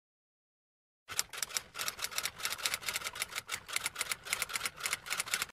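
Typewriter keystroke sound effect: a fast run of sharp key clicks, about five or six a second, starting about a second in, laid under text being typed out on screen.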